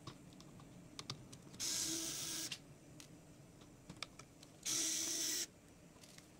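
Small cordless electric screwdriver running twice in short bursts of just under a second each, backing out tiny laptop screws. Light metallic clicks of the bit and screws come between the bursts.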